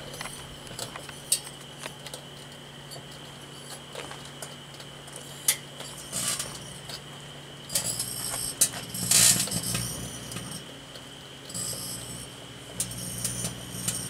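Danby microwave oven running with a steady hum, while a black-light bulb inside arcs into plasma, giving irregular sharp crackles and several short buzzing bursts, the loudest about nine seconds in.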